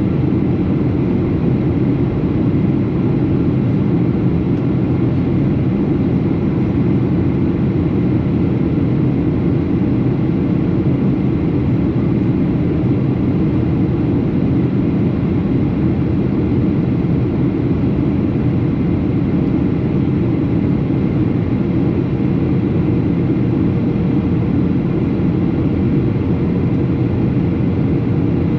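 Steady cabin noise of a Boeing 737 airliner in flight: an even, low drone of jet engines and rushing air, with a faint steady hum in it.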